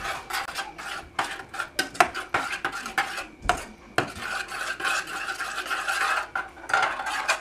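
A spoon stirring thick yogurt and cucumber in a stainless steel pot, scraping and knocking against the pot's sides and bottom in quick, irregular strokes, with a longer continuous scrape a little past the middle.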